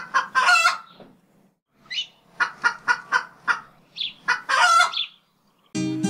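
A chicken clucking and squawking: a few loud calls, then a run of short clucks about three a second and a longer squawk, falling silent about five seconds in. An acoustic guitar comes in near the end.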